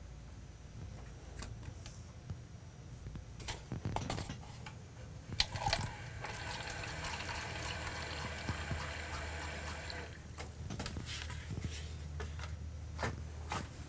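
Bathroom faucet running into a cup at a washbasin for about four and a half seconds, starting about five seconds in. Scattered small clicks and knocks come before and after.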